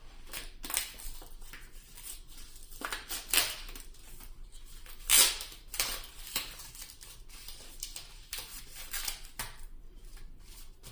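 Yu-Gi-Oh trading cards being handled: an irregular run of short papery swishes and flicks as cards are slid off the stack and flipped over, the loudest about five seconds in.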